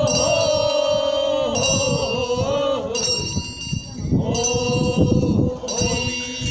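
A voice chanting the Korean funeral bier song (sangyeo sori), holding long wavering notes, with a handbell ringing in a steady beat about every second and a half.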